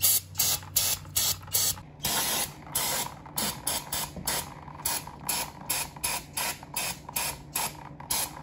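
Aerosol can of brake cleaner sprayed onto an oil-covered A/C compressor in short, rapid hissing bursts, about two or three a second. About two seconds in comes one longer spray lasting about a second, and then the quick bursts resume.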